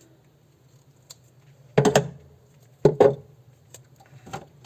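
White vinyl electrical tape being pulled off its roll and cut: a few short, sharp sounds, two loud ones about two and three seconds in and a fainter one near the end.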